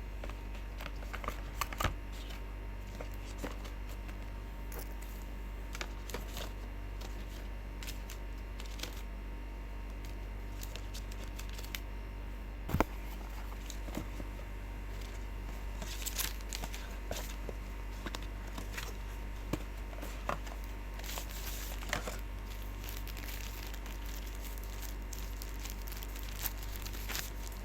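Packaging being handled during a smartphone unboxing: crinkling and tearing of plastic wrap, with scattered taps and clicks, the loudest about halfway through, over a steady low electrical hum.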